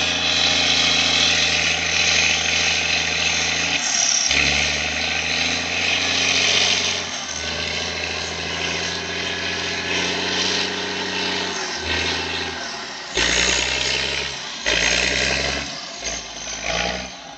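ULT 220 wheel loader's turbocharged diesel engine working, its revs rising and falling several times as the load changes, with the turbocharger whistling over it. The engine drops back near the end.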